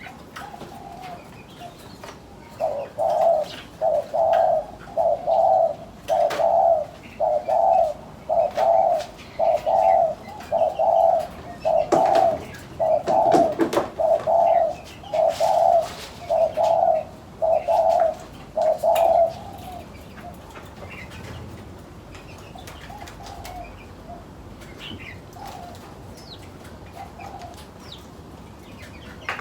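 A dove cooing in a long, even series of coos, about one a second, which stops a little past halfway and is followed by only a few faint coos. Small birds chirp and click throughout.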